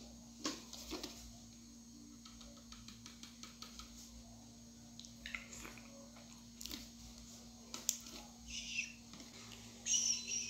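Faint scattered taps and handling sounds over a low steady hum, with two short shushing hisses near the end.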